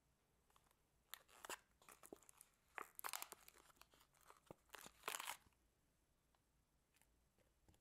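Foam-bead slime (floam) being dug out of a plastic tub by hand, giving short bursts of crackling and squishing as the beads pop and the slime peels away. It falls almost quiet for the last couple of seconds.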